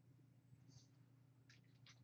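Near silence over a low steady hum, with a few soft computer-keyboard clicks near the end.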